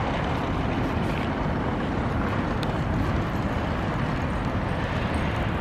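Steady outdoor city ambience: a continuous, even rumble and hiss with no distinct events.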